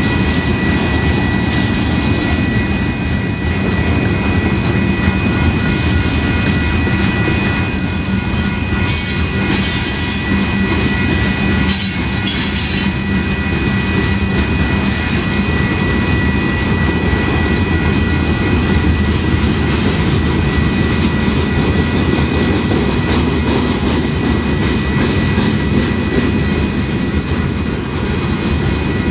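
Freight cars of a long manifest train rolling through a grade crossing: steady rumble of steel wheels on the rails with clacking over the joints. A steady high-pitched tone sits over it, with a few sharp clanks near the middle.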